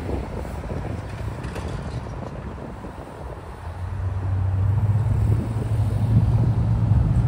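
Road traffic passing a railroad crossing, with wind buffeting the microphone. About halfway through, a steady low engine hum comes in and grows louder as a vehicle draws near.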